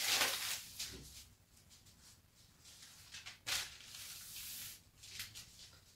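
Large paper sewing pattern rustling and crinkling as hands slide and smooth it flat over felt, in several short bursts, the loudest right at the start.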